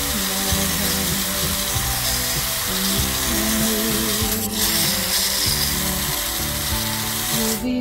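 Garden hose spray hissing steadily as the water splashes onto soil and a coir mulch mat, mixed with background music.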